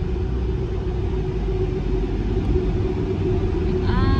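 Car driving slowly through a ferry's enclosed vehicle deck, heard inside the cabin: a steady low rumble with a constant hum.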